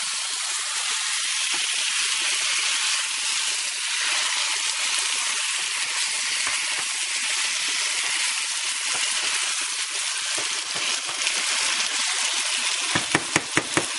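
Spice-coated chicken pieces sizzling in oil in a stainless sauté pan while being stirred with a wooden spoon, a steady hiss. A quick run of sharp knocks near the end.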